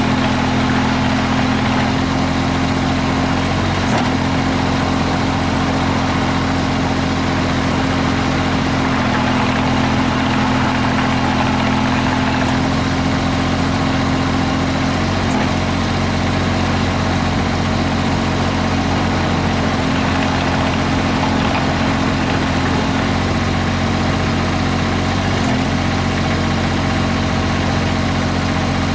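Mitsubishi MM20CR mini excavator's diesel engine running steadily at a constant speed, with no revving.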